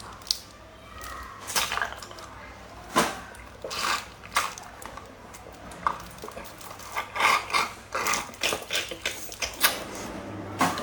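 Eating sounds: irregular wet smacks and clicks, with clinks of utensils. The clicks come thickest between about seven and ten seconds in.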